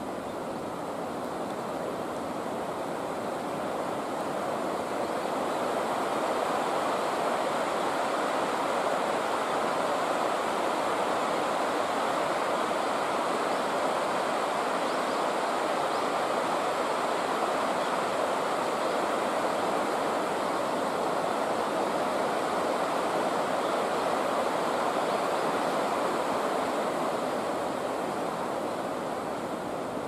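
Steady rushing of river water flowing fast over rapids around the bridge piers. It grows a little louder a few seconds in and eases again near the end.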